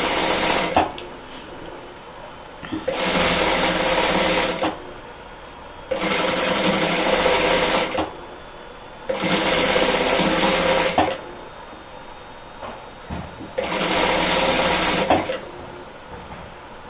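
Sewing machine stitching in short runs: one ends just after the start, then four more of about two seconds each, separated by short pauses.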